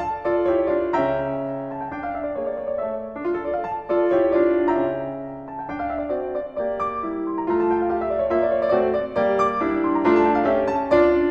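Instrumental background music led by piano, with a melody of changing notes over a low sustained bass.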